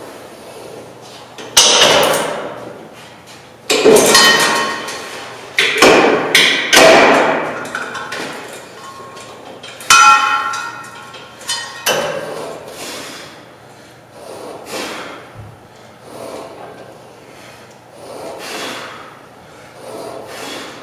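Steel weight-stack plates on a cable machine clanking and ringing, six loud clanks in the first twelve seconds. After that come softer, heavy breaths about every two seconds as the reps go on.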